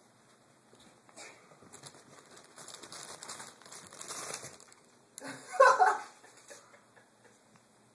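Ferrets rustling and scrabbling through fabric bedding and cardboard, a run of crinkly rustles, followed near six seconds by a short, loud vocal sound.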